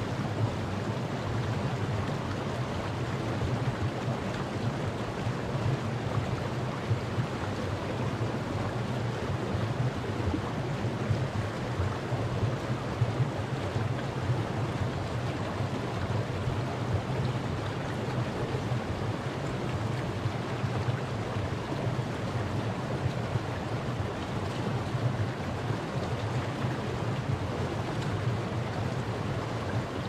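Shallow mountain stream rushing and splashing over rocks: a steady, unbroken rush of water with a low rumble underneath.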